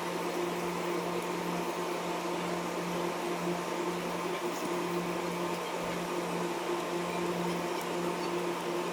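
Steady hum of a small fan or motor running continuously, with a low, even tone and a few faint ticks.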